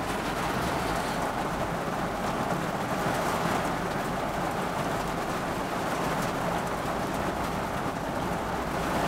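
Steady rain falling on a car's windshield and roof, heard from inside the cabin as an even hiss.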